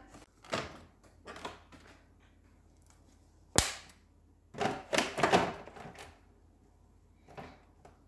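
Plastic PET bottle being handled, with a few light clicks and crackles, then a sharp knock about three and a half seconds in. A cluster of knocks and rattles follows as the bottle is set into a refrigerator door shelf.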